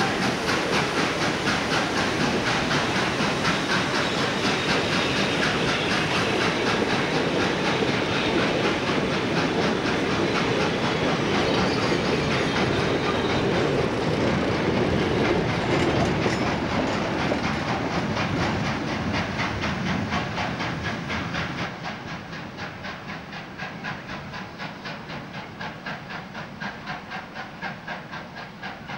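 South Australian Railways 520-class 4-8-4 steam locomotive working hard past at close range, its exhaust beating in a fast rhythm, with the carriages clattering over the rail joints as they roll by. About two-thirds of the way through the sound drops away as the train draws off, the beats still going more faintly.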